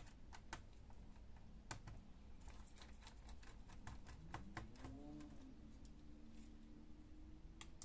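Faint, irregular small clicks and ticks of a small screwdriver working a screw on the laptop's metal display bracket by the hinge.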